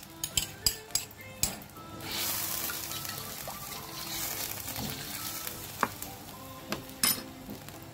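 A utensil clinks quickly against a plate as oyster sauce is scraped into a wok. Then the tomato and oyster sauce sizzles in the hot wok while a metal spatula stirs it, with a couple of knocks of the spatula on the wok near the end.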